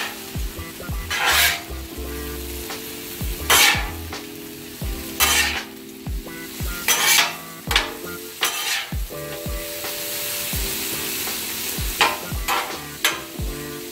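Chopped beef sizzling on the steel plate of a Blackstone flat-top griddle. A metal spatula and cleaver scrape across the griddle about six times as the meat is turned and chopped.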